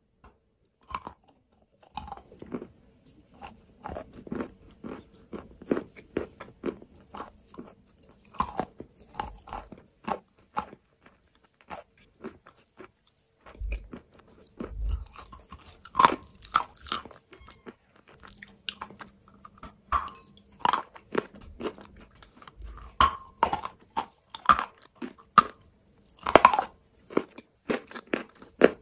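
Close-mic crunching and chewing of chalk: irregular sharp bites and crisp crunches, one after another, growing louder and more frequent in the second half.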